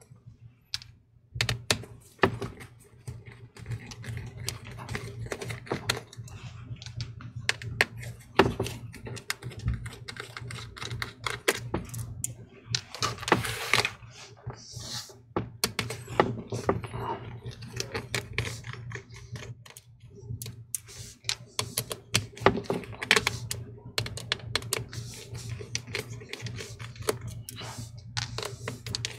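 Small Torx T8 screwdriver backing out the hinge screws of a MacBook Air: a steady run of light, irregular clicks and taps of the driver and screws against the metal hinge, with a short rustle of handling about halfway through.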